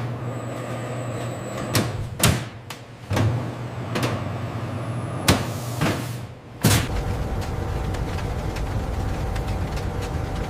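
A series of sharp door-like clunks and bangs over a low hum, the last and loudest about two-thirds in. After it a steady machinery noise runs with a faint held tone.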